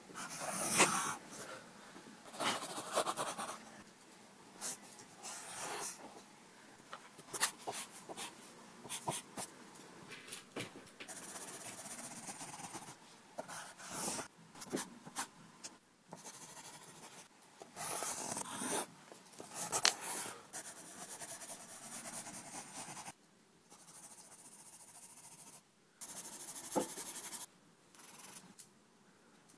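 Pencil scratching on paper in irregular sketching strokes, some short and sharp, some drawn out, with brief pauses between.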